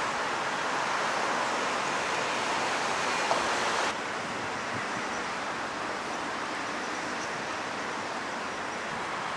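Steady rush of shallow stream water flowing over stones. The sound shifts slightly and gets a little quieter about four seconds in.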